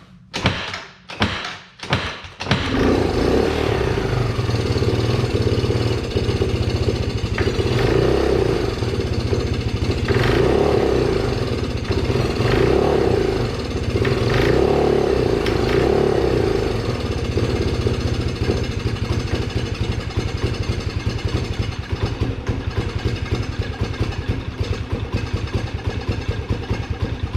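Engine of a water-swamped Can-Am cranking in a few short bursts, catching about two and a half seconds in, then running steadily with several revs before it dies near the end.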